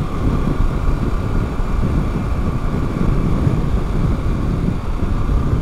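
A Harley-Davidson Pan America Special's 1252 cc 60-degree V-twin running steadily at highway cruising speed, about 70 mph. Its drone is mixed with a continuous low rush of wind and road noise.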